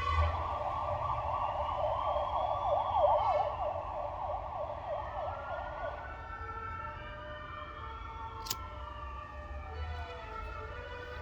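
Police sirens: a fast yelp, cycling about three or four times a second, for the first six seconds. It then switches to slow rising-and-falling wails, with more than one siren overlapping and growing quieter. A single sharp click comes about eight and a half seconds in.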